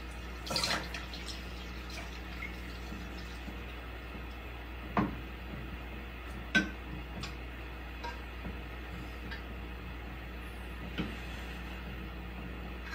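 Quiet room tone with a steady low hum, broken by a few soft knocks. The sharpest knocks come about five and six and a half seconds in.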